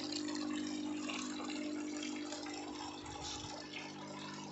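Water trickling and splashing through a homemade PVC-pipe hydroponic system into its reservoir tub, over the steady hum of the circulation pump, a desert-cooler motor.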